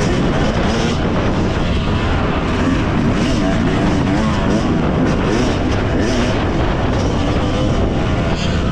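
Yamaha motocross bike's engine running hard while being ridden on a dirt track, its pitch rising and falling as the throttle opens and closes, with wind rushing over the onboard microphone.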